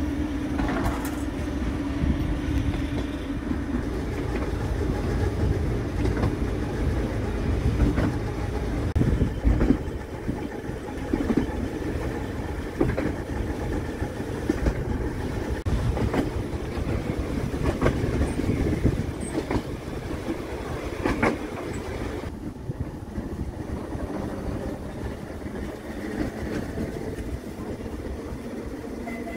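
Electric narrow-gauge tram running along its track, heard from the open top deck: a steady rumble of wheels and running gear with scattered clicks as the wheels pass over rail joints.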